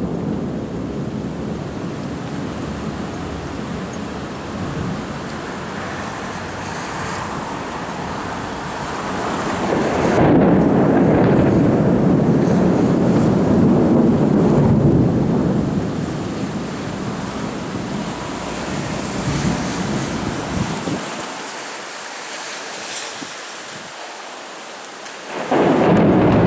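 Deep, rough rumbling noise from the sky that swells and fades, grows louder about ten seconds in, loses its low end near the end and then surges back. It is one of the 2012 'strange sounds', which the uploader suspects is the horn of a UFO.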